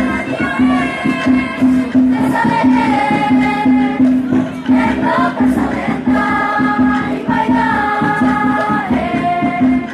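Maengket dance song of Minahasa: a group of performers singing together in long held phrases, over a steady low beat about twice a second.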